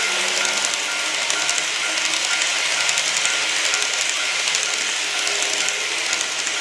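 A TOMIX N-gauge 209 series 2100 model train running past on the track, a steady whirr and rattle of its motor and wheels with fine clicks. The model level crossing's electronic warning bell dings faintly underneath.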